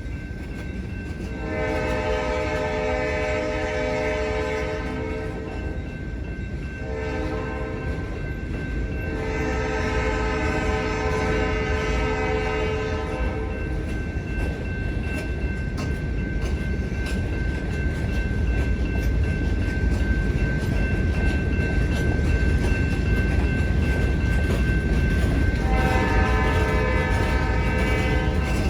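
Freight locomotive's multi-note air horn sounding a long blast, a short one and another long one, then starting again near the end, over the low rumble of the approaching diesel locomotives growing louder.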